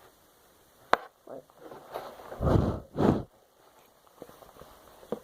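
Handling noise from a taken-apart remote control's parts: a sharp click about a second in, then rubbing and scraping, with two heavy, deep bumps or rubs near the middle.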